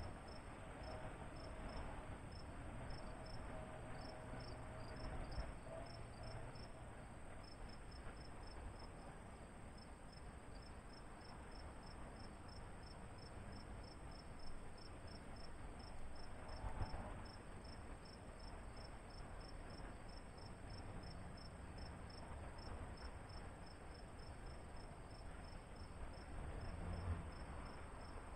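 Insect chirping in short, high, evenly spaced pulses, about three or four a second, over a faint low outdoor rumble.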